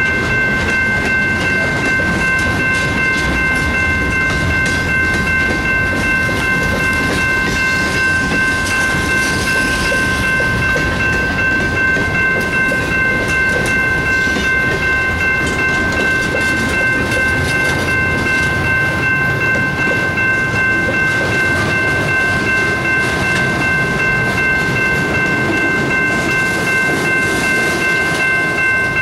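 General Signals Type 2 electronic crossing bell ringing continuously, its several steady tones sounding together, over the rumble of freight cars rolling through the crossing.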